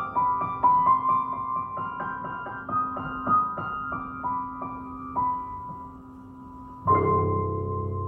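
Solo piano playing a melody of single notes over a held lower note. The playing thins out, then a final chord is struck about seven seconds in and left ringing.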